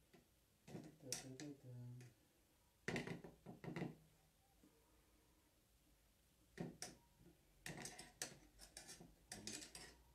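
Quiet, scattered clicks and taps of metal kitchen tongs against a bowl and plate as strawberries are picked up and set on a cake, coming in short clusters a few seconds apart.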